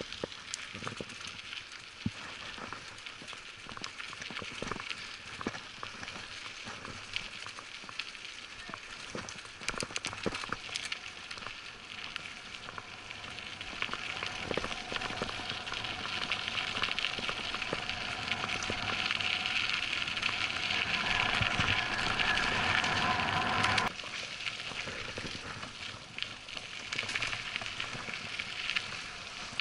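Mountain bike rolling down a gravel road: tyres crunching and crackling over loose stones, with scattered clicks and rattles. The noise grows louder through the middle and drops suddenly about three-quarters of the way through.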